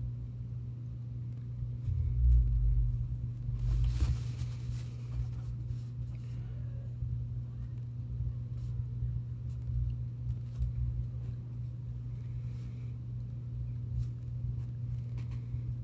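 Steady low hum, with a couple of louder low rumbling swells about two and four seconds in.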